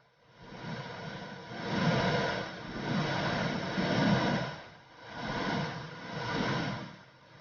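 Womb sound for soothing a baby: a whooshing noise, like blood flow heard inside the womb, that swells and fades in uneven waves.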